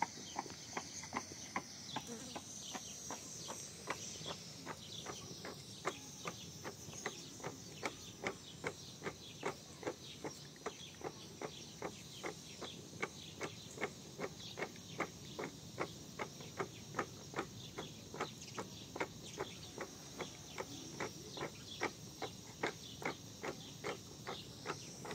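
Crickets chirping steadily, with a long, even run of sharp knocks at about two to three a second over them.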